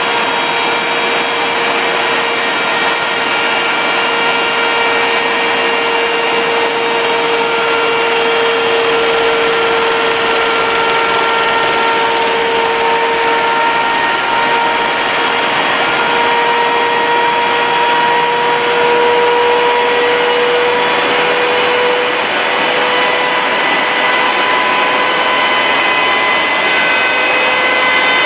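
Electric timber-beam notching machine running, its milling cutters cutting a corner notch into a profiled wooden beam: a loud, steady whine over the noise of cutting wood.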